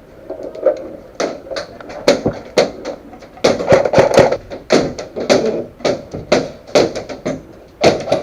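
Airsoft guns firing single shots, about a dozen sharp cracks at roughly two a second with uneven spacing.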